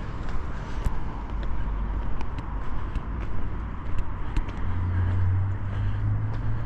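Street traffic: a motor vehicle running nearby, with a low rumble and a steady low engine hum setting in about two-thirds of the way through, and scattered light ticks.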